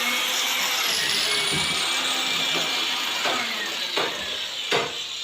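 An electric power tool's motor whining steadily, its pitch sagging slowly, with a few sharp knocks in the second half.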